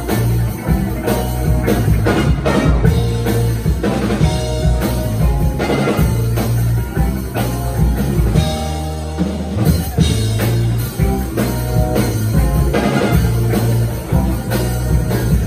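A live band playing loudly: drum kit, electric bass, electric guitar and keyboard, with saxophone and trumpet. The deep bass drops out for about a second around the middle, then comes back in.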